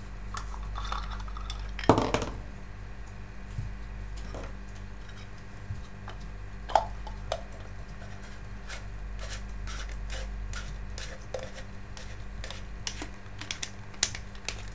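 Hard plastic parts of a fountain pump and its nozzle attachments being handled and fitted together: scattered clicks and knocks, one louder knock about two seconds in, and a quick run of small clicks near the end.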